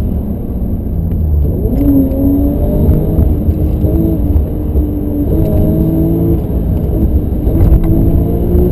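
BMW M5 engine heard from inside the cabin under hard driving, its note rising as it revs and shifting pitch in steps several times, over a heavy low road rumble.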